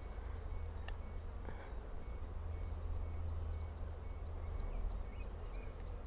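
Outdoor meadow ambience: a steady low rumble with a faint high chirp repeating a few times a second, and a single short click about a second in.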